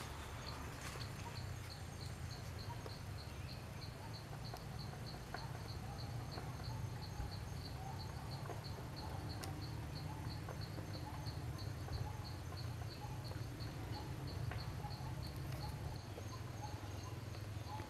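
An insect chirping in a steady rhythm, about three short high chirps a second, over a low steady rumble of forest background.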